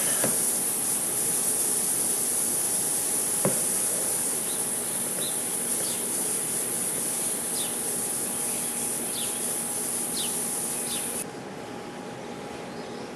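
Plastic welder hissing steadily as it melts plastic filler rod into a cracked bumper, cutting off suddenly about 11 seconds in. A faint steady hum and a few short high chirps sit under it.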